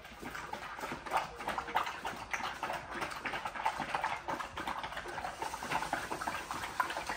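A pet dog close by, making a continuous run of quick, irregular clicks and scuffling noises.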